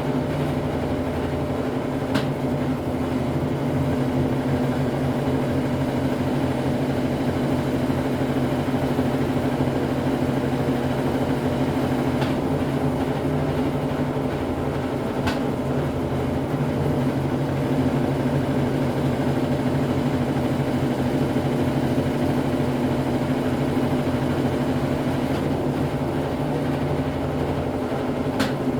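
Brastemp Ative 11 kg BWL11 washing machine in its intermediate spin, drum and motor running with a steady hum, with a few faint ticks now and then.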